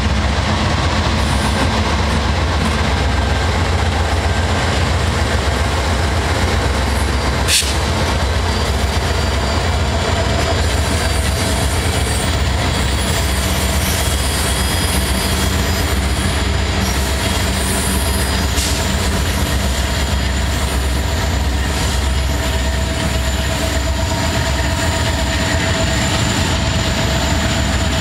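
Freight train passing close by: Norfolk Southern diesel locomotives and their steel wheels rumbling steadily on the rails, with a single sharp click about seven and a half seconds in.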